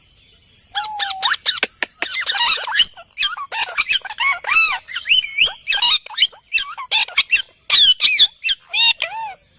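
A group of small birds chattering: rapid, overlapping high chirps and squawks, starting about a second in.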